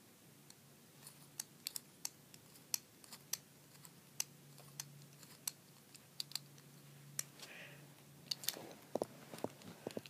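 Master Lock combination padlock dial being turned by hand, giving a run of small, irregular clicks as the combination is re-entered from the start.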